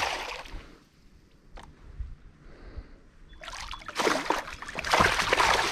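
Hooked smallmouth bass thrashing and splashing at the surface beside a kayak: one splash at the start, then a longer, louder bout of splashing from about three and a half seconds in.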